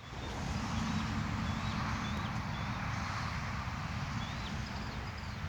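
Outdoor ambience: a steady low rumble and hiss, with faint short bird chirps every second or so.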